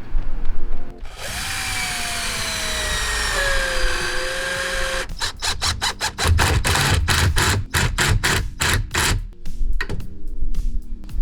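Electric drill-driver running for about four seconds, its motor pitch sinking slowly as it works under load driving into wood. It then gives a fast run of sharp clicking strokes.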